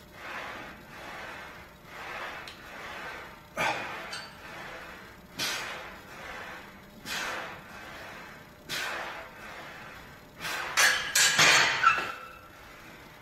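Forceful breaths pushed out in a steady rhythm, about one every second and a half to two seconds, with each rep of a seated barbell overhead press. Near the end comes a quick run of loud metal clanks as the loaded barbell is set back onto the rack's hooks.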